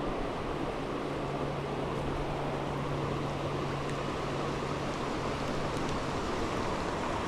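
Rushing trout stream: a steady wash of fast-flowing water over rocks.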